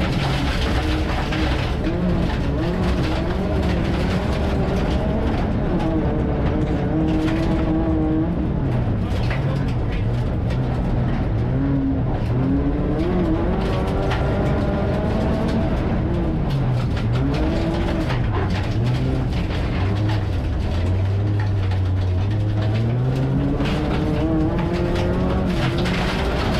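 Race car engine heard from inside the cockpit, its pitch rising and falling again and again as the driver goes on and off the throttle, with a long low stretch before it climbs again near the end. Gravel and tyre noise clatter underneath throughout.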